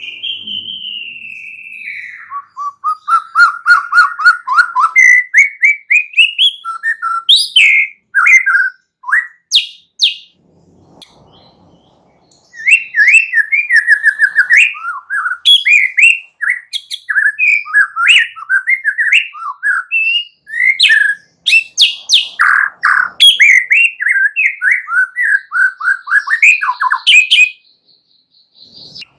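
Young white-rumped shama singing: it opens with a long whistle gliding down, then runs of fast repeated notes and varied whistled phrases. The song breaks off for about two seconds near the middle, then carries on in a long rapid run.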